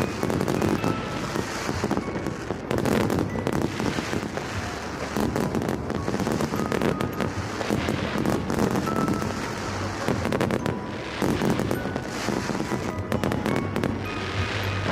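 Fireworks going off: a dense, continuous crackle of many rapid pops, with music underneath.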